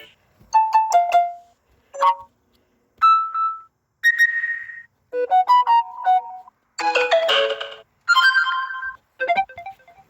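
Samsung Galaxy A50 stock notification sounds played one after another: about eight short electronic chimes and jingles, each lasting a second or less, with brief silences between them.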